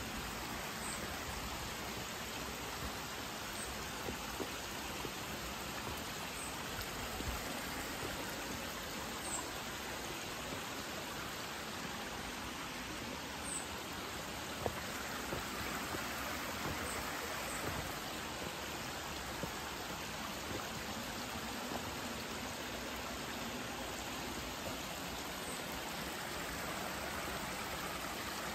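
Steady rush of shallow water running over rock, with a few faint short high peeps now and then.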